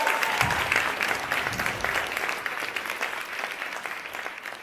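Audience applauding, the applause fading steadily away.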